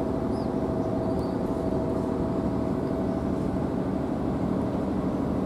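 Steady engine drone with a constant hum, unchanging in level throughout.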